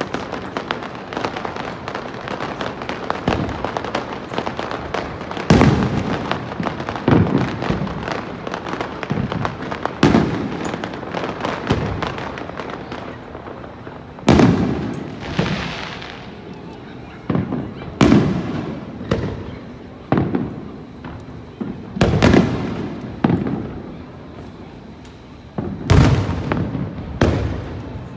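Aerial firework shells bursting in a steady string of sharp booms, one every second or two, each trailing off in an echo, with a crackling burst about fourteen seconds in.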